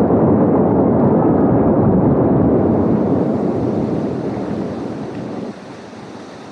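A steady rushing noise with no tone in it. It fades over the last few seconds, then drops suddenly quieter near the end.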